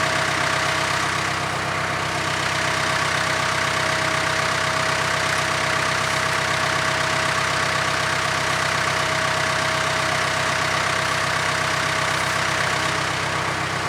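Backhoe's diesel engine idling steadily, with no revving or load changes.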